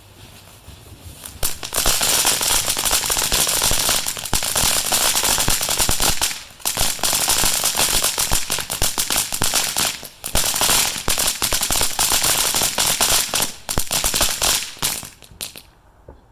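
Firecrackers going off in a long, dense, rapid crackle of sharp bangs. The crackle starts about a second and a half in, breaks off briefly twice, and dies away shortly before the end.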